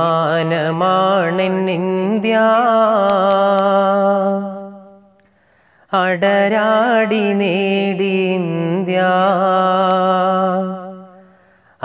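A solo voice sings a wordless, ornamented melody in two long phrases of about five seconds each, each fading out. It opens a Malayalam patriotic song.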